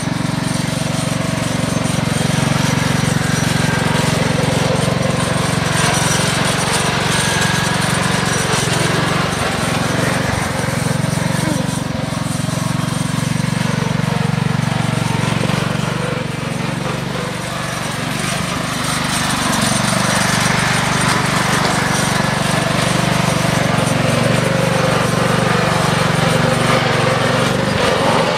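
Riding lawn mower's small engine running steadily as it is driven along, dipping slightly in level about two-thirds of the way through.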